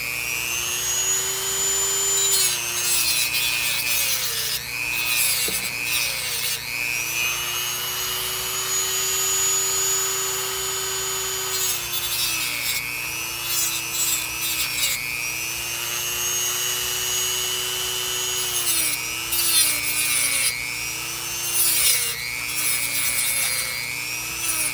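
Dremel variable-speed rotary tool with a thin cutoff wheel grinding down a white plastic part. The motor's whine sags in pitch each time the wheel bites into the plastic and climbs back when it is eased off, many times over, with a rasping grind on top.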